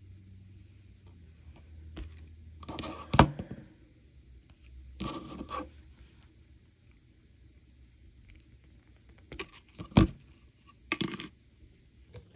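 Silver-plated copper wire being worked with hand jewellery tools while trimming a pendant's bail wires: scattered sharp metal clicks, the loudest about three seconds and ten seconds in, with short scraping and rustling of the wire ends around three and five seconds.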